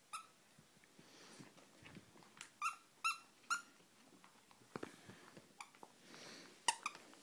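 A puppy at play with a plush toy: several short, high squeaks, three of them in quick succession about two and a half seconds in, with light taps and rustles on carpet and a sharp click near the end.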